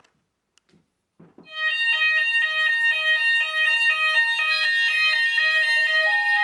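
A few faint clicks, then about a second and a half in the fire alarm sounders start: a loud electronic alarm tone stepping rapidly back and forth between pitches, several times a second. It is the evacuate signal of an addressable fire alarm system, set off by a manual call point operated with a test key.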